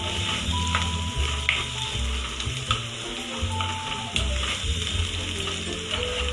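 Chopped onions sizzling in oil in a nonstick pan on gentle heat, stirred, with occasional clicks of the utensil against the pan; the onions are browning. Background music plays under it.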